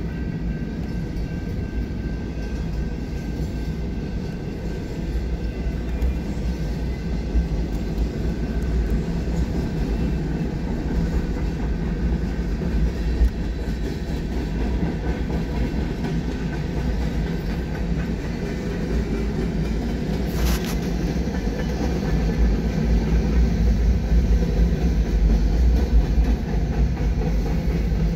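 Freight train rolling through a grade crossing: the steady rumble and rattle of container cars, boxcars and covered hopper cars passing on the rails, growing somewhat louder near the end. A brief hiss cuts through about twenty seconds in.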